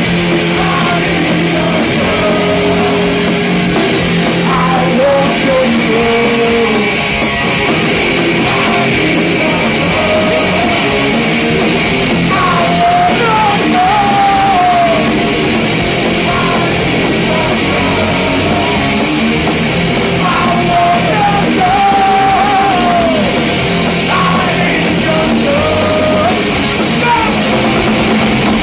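Live punk rock band playing loud: distorted electric guitars, bass and drums, with a man singing over them.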